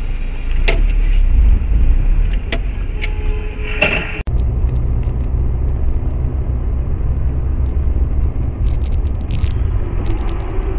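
Car cabin noise picked up by a dashcam: a steady low rumble of engine and tyres on the road. A few sharp clicks sound in the first four seconds, then the sound breaks off abruptly about four seconds in and a similar steady rumble carries on.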